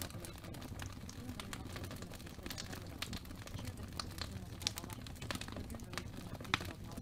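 Crackling fireplace ambience: a wood fire snapping and popping at irregular moments over a low steady rumble, with a few sharper pops in the second half.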